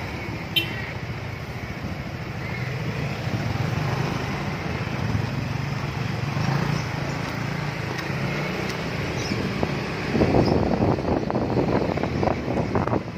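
Motor scooter engine running steadily while riding, with wind noise on the microphone that grows louder and rougher in the last few seconds.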